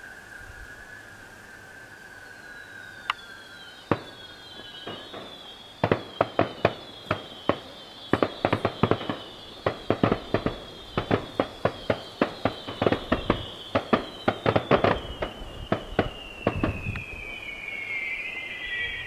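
Fireworks going off. A steady whistle gives way to several whistling fireworks sliding slowly down in pitch. From about six seconds in, a rapid string of sharp bangs, several a second, runs until near the end and is the loudest sound.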